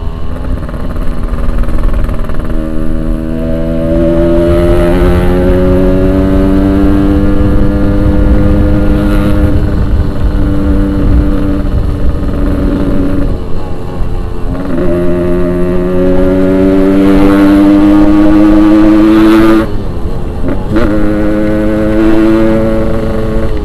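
Yamaha RX-King 135cc two-stroke single-cylinder engine pulling hard under throttle. Its pitch climbs steadily, falls away about 14 s in and again about 20 s in, then climbs again each time.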